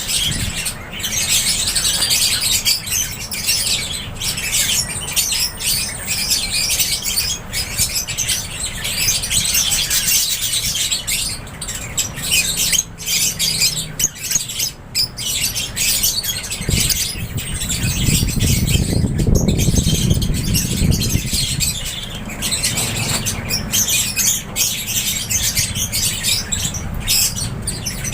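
A flock of lovebirds in an aviary chirping and squawking in continuous, overlapping high chatter. A low rumble swells for a few seconds about two-thirds of the way through.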